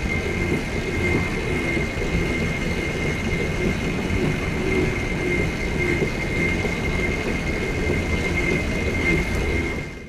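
Electric go-kart driving on a concrete track, heard close from the fender: a steady high motor whine over rumbling tyre and chassis noise. It fades out at the very end.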